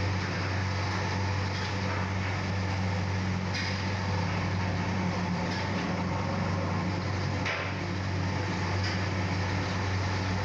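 Jalebis frying in a large wok of hot oil over a gas burner: a steady low rumble under an even hiss, with a few faint ticks.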